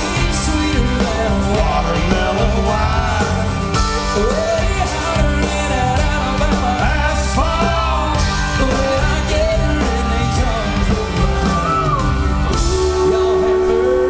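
Live country-rap band playing, with a melody line that bends up and down over steady bass and drums, and a long held note starting near the end.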